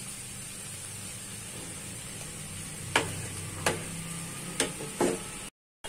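Potato, cauliflower and tomato bhaji sizzling in a frying pan, a steady soft hiss, with four sharp clicks about three to five seconds in. The sound cuts out briefly near the end.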